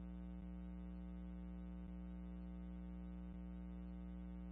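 Steady low electrical hum on a scanner's radio audio feed between transmissions, with faint ticks about every second and a half.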